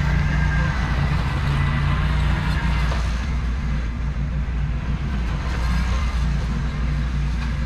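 Ventrac compact tractor's engine running steadily at working speed, with a faint high whine over the low engine note.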